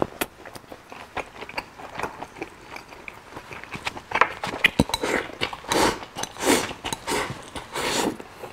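Close-miked eating of pig's head meat: many wet mouth clicks and smacks from chewing. There are several louder, longer mouth sounds between about four and eight seconds in.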